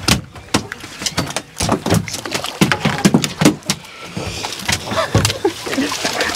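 A hooked dorado being fought at the boat's side: irregular sharp knocks and splashing as the fish thrashes at the surface, together with rod and reel handling.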